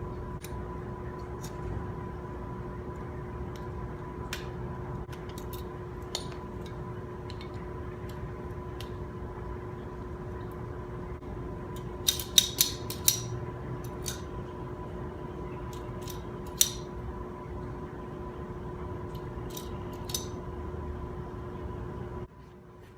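A steady hum carrying two steady tones, with scattered sharp clicks and taps. The loudest are a quick run of four clicks about halfway through and a single one a few seconds later. The hum drops away just before the end.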